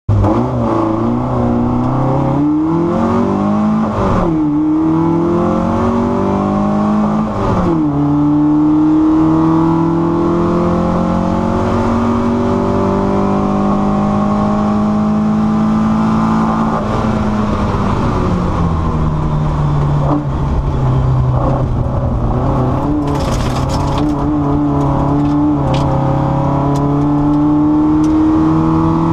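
Car engine accelerating hard from a standing start, recorded on board. The engine note climbs and drops sharply at two quick gear changes in the first eight seconds, then runs at a higher, steady, slowly rising pitch, easing off briefly a couple of times.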